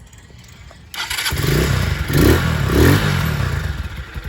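Lifan KP Mini 150 motorcycle's newly swapped 150 cc single-cylinder engine starting about a second in and revving up and down three times, then settling toward a fast, uneven idle. The owner takes this to mean the choke needs adjusting.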